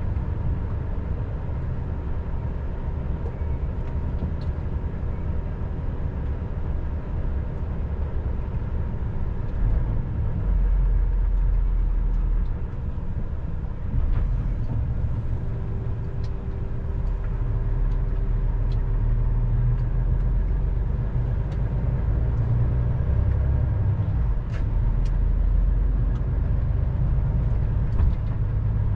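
Engine and road noise of a heavy vehicle heard from inside its cab while driving, a steady low rumble. About halfway through, a faint steady whine joins for several seconds, and there are a few light ticks.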